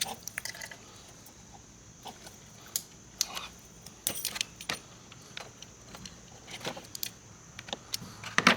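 Small parts being handled: a plastic multi-pin electrical connector and wire harness tapped and fiddled with, giving irregular light clicks and rattles, the loudest near the end.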